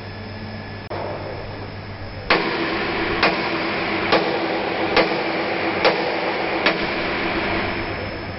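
A low steady hum, then about two seconds in a machine starts up with a steady hiss and a held tone, with six sharp knocks about a second apart over it, easing off near the end.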